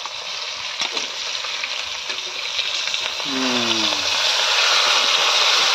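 Pork pieces frying in hot oil in a wok with freshly added chopped onion and green chilli: a steady sizzle that grows louder about three seconds in.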